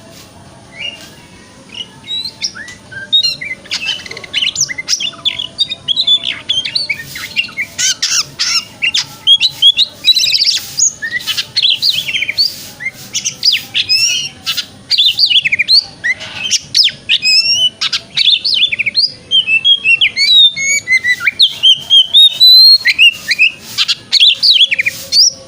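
Oriental magpie-robin singing a long, fast, varied song of clear whistles mixed with rapid chattering notes, starting about a second in.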